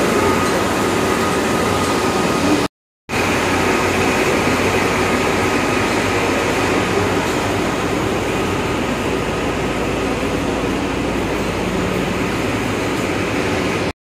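Tea-processing machinery running with a loud, steady mechanical din and a faint steady tone running through it. The leaves are being ground into a paste. The sound cuts out briefly about three seconds in.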